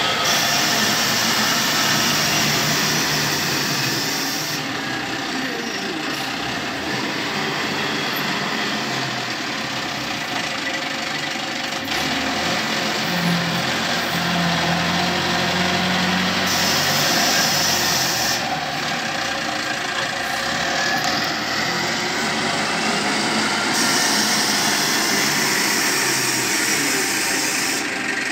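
Freshly serviced SYZG wheel loader's diesel engine running steadily under load as the machine digs, drives and raises its bucket, with a high hiss that comes and goes several times.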